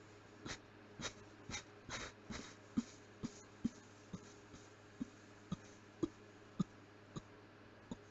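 A run of short, muffled closed-mouth coughs, about two a second. After about three seconds they become smaller and sharper, almost like clicks in the throat.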